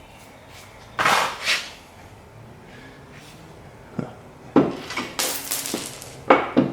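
Knocks and clatters of hard parts being handled and shifted: one knock about a second in, then a run of clunks and scrapes from about four seconds on, the last one sharp, near the end.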